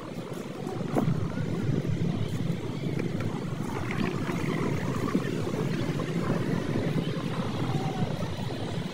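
Wind buffeting a phone microphone outdoors, a steady rough rumble that grows louder about a second in.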